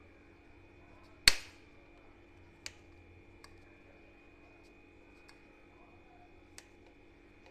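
Knife knocking against the plate while slicing through a sponge cake: one sharp knock a little over a second in, a smaller one near three seconds, then a few faint clicks, over a faint steady hum.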